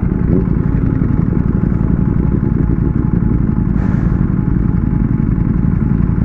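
Ducati Panigale V4S's V4 engine running at low, steady revs while riding, heard close from the onboard mic, with a brief hiss about four seconds in.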